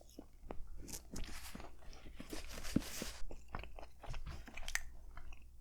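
Close-miked chewing of a turkey, mashed potato and gravy hoagie: irregular wet clicks and soft crunches of bread being bitten and chewed, loudest about halfway through.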